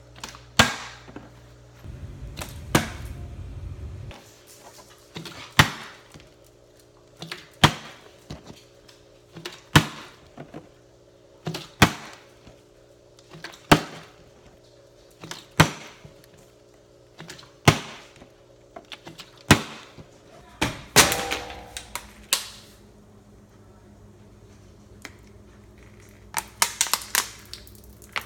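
Partly filled plastic water bottle flipped and landing again and again, a sharp knock about every two seconds, with a quicker run of knocks near the end.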